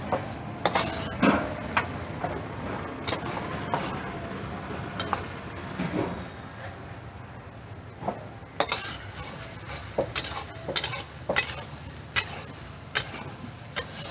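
A steel ladle scraping and clinking against a steel pan of chicken in gravy. The sharp metal clinks come in scattered single strikes at first and are thickest in the last few seconds.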